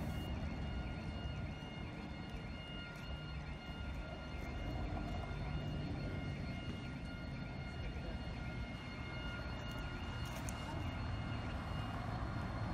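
Low, steady rumble of distant jet aircraft. Over it, a faint high tone warbles about twice a second and stops near the end.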